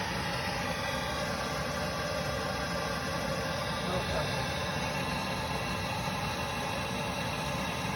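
A steady, even drone, like machinery or a torch running, with a faint voice briefly about four seconds in.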